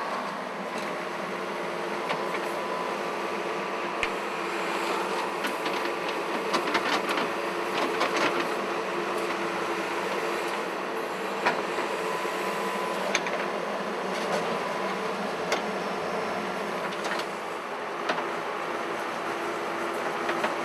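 Diesel engine of a JCB backhoe loader running steadily under load as its bucket digs into dry red soil, with scattered clanks and knocks from the bucket and falling earth and stones.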